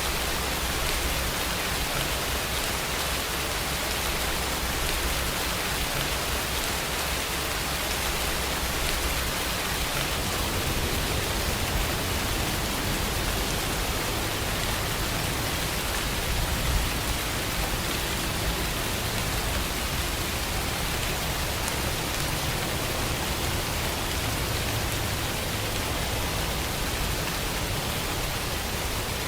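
Steady rain falling, an even, unbroken hiss, with a low rumble shifting underneath.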